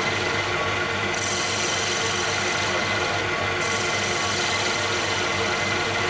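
Wood lathe driven by a variable-frequency drive running steadily, with a turning tool scraping a small spinning piece of wood; the hiss of the cut comes in about a second in and eases off past the middle.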